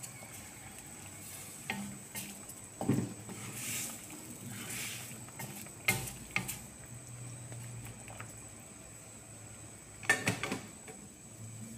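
A wooden spatula stirring a broth of fish, long beans and tomato in a metal wok, with the liquid swishing and the spatula knocking against the pan several times, in a quick cluster near the end.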